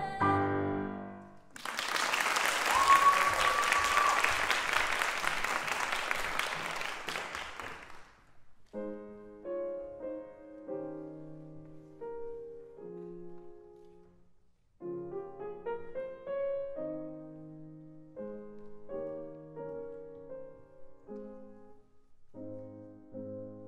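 Audience applauding for about six seconds, with one brief high cheer in the middle. About nine seconds in, a grand piano begins playing a slow, gentle introduction, phrase by phrase, with no singing yet.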